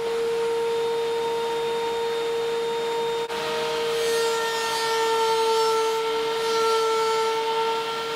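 DeWalt benchtop thickness planer running with a steady high whine. There is a brief click a little over three seconds in. From about four seconds in, a rougher hiss of cutting joins the whine as wooden boards are fed through the cutterhead.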